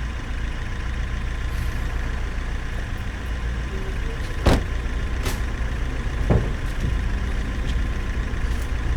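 Car engine idling with a steady low rumble that is a little uneven, a few sharp clicks cutting through it about halfway through.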